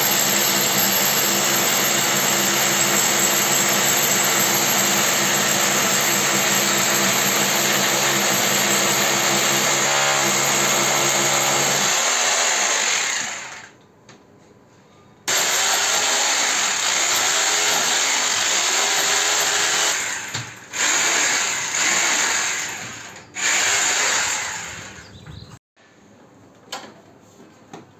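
Corded electric drill boring into a plastered wall to fix an air conditioner's mounting plate. It runs steadily for about 13 seconds and winds down. After a short pause it runs again in several shorter bursts, stopping about 25 seconds in.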